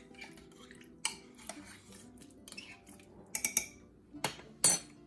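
A metal spoon clinking against a spice jar and the slow cooker's crock as seasonings are added: a handful of sharp clinks, more of them in the second half, the loudest near the end.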